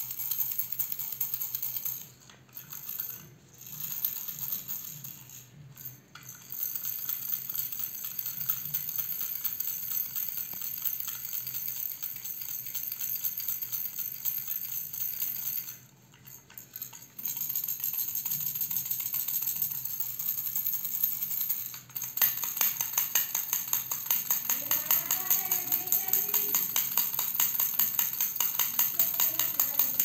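Plastic baby rattle shaken by hand, the small beads in its clear plastic ring rattling in a dense stream, broken by a few short pauses. From about two-thirds of the way through it is shaken in quick, even strokes.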